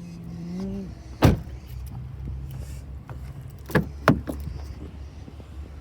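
A car's electric window motor whirs for about a second, rising slightly in pitch. A sharp clunk follows, then two clicks a few seconds later, over a low steady hum.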